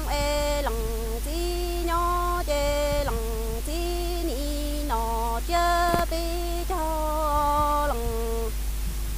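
A woman singing kwv txhiaj, Hmong sung poetry, unaccompanied. Her voice moves in long held notes that slide from one pitch to the next, in short phrases.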